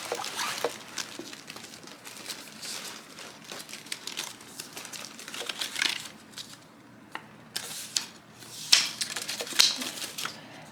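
Packing paper stuffed inside a new handbag crinkling and rustling as it is pulled out, in irregular bursts, loudest near the end.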